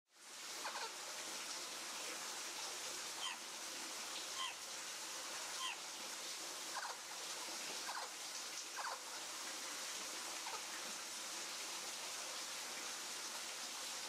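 Short, sharp bird chirps, about eight of them spaced a second or so apart, over a steady background hiss.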